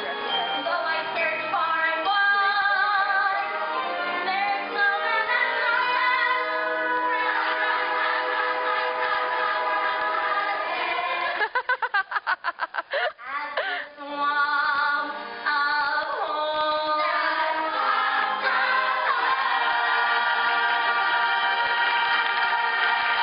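A stage-musical cast singing together in chorus, with held notes. About halfway through, the sound breaks up in rapid flutters for about two seconds, and the last few seconds are one long held chord.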